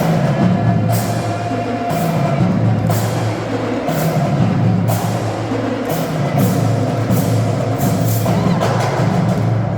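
Loud music with a deep bass line changing note every second or two, and sharp percussive hits.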